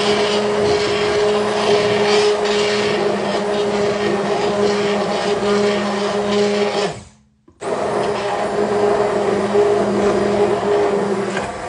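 Mueller immersion blender running in a pot of potato leek soup, a steady motor hum as it purées the cooked potatoes and leeks. It cuts off about seven seconds in and starts again about half a second later.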